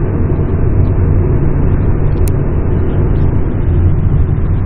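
Steady low rumble of road and engine noise inside a moving car's cabin, with a single brief click about two seconds in.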